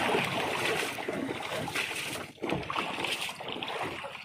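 Sea water sloshing against the hull of a small wooden boat, with wind buffeting the microphone.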